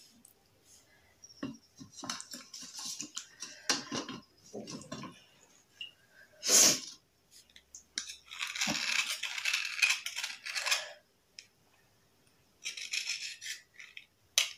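A knife blade scraping the gritty white outer layer off a hard black bar, in repeated rasping strokes. There is a sharp, loudest stroke about halfway through, a longer stretch of steady scraping a couple of seconds later, and another short burst near the end.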